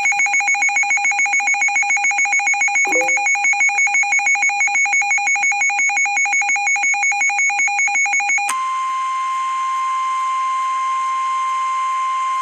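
Alert receiver's alarm beeping rapidly, about seven beeps a second. About eight and a half seconds in, it switches abruptly to the steady single-pitch weather-radio warning alarm tone that comes before a National Weather Service warning message.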